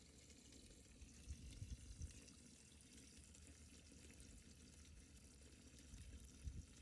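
Near silence: faint steady hiss of room tone, with a few soft low bumps about a second and a half in and again near the end.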